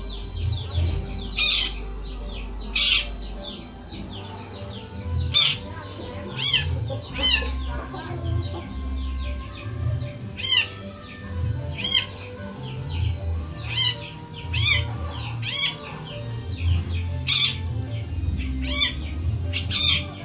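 Long-tailed shrike (cendet) in full song, giving about a dozen loud, harsh calls roughly every one to two seconds, with softer chirps between them: cat-like calls in the shrike's mimicking repertoire.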